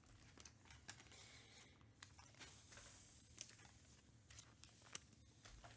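Faint rustling and light clicks of trading cards and foil pack wrappers being handled, with one sharper click near the end.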